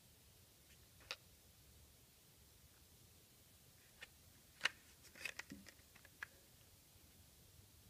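Near silence broken by a few light clicks and taps from small plastic key tags and their metal rings being handled: one about a second in, then a quick cluster of several a little later, the sharpest near the start of that cluster.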